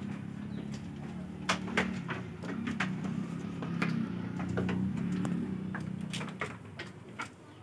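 A low, steady hum that fades out about six and a half seconds in, with scattered sharp clicks and knocks over it.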